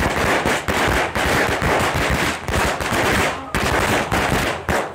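Firecrackers bursting in rapid succession on the ground, a dense string of sharp bangs like machine-gun fire, with a brief lull about three and a half seconds in.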